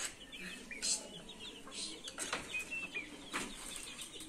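Chickens clucking over many short, high chick peeps, with a few sharp clicks.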